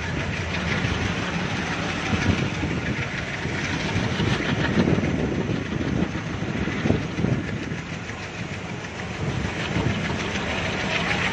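A train running along the track: a steady rumble and rushing noise with irregular knocks of wheels over the rails.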